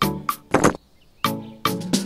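Background music with a regular percussive beat.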